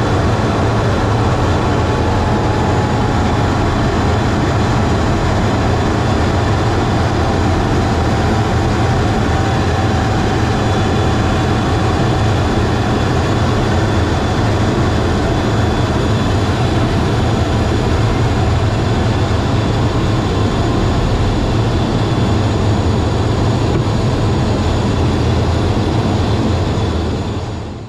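Steady cockpit noise of a fighter jet in flight: the engine and the rushing air heard inside the canopy, fading out at the very end.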